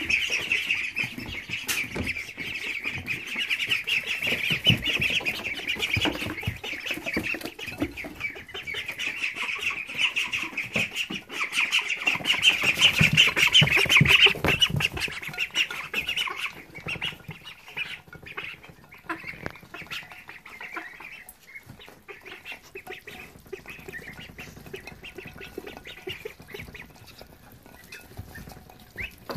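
A flock of three-week-old Silver Appleyard, Welsh Harlequin and Rouen ducklings peeping loudly together, the chorus thinning out after about fifteen seconds. Through it comes a patter of quick clicks from their bills dabbling in a glass dish of peas.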